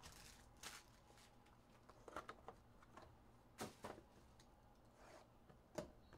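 Faint handling noise of trading-card boxes and packs on a table: a few soft rustles and light taps, scattered and short, the sharpest about midway and near the end.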